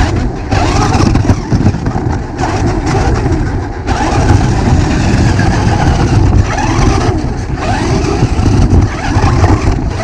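Radio-controlled rock crawler's electric motor whining, rising and falling in pitch as the throttle changes, over a heavy rough rumble.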